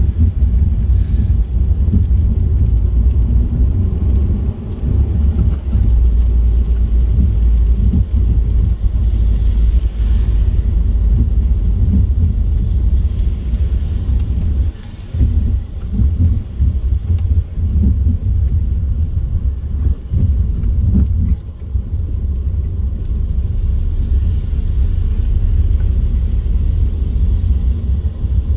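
Steady low rumble of a car driving at motorway speed: road, tyre and engine noise, with brief dips in level now and then.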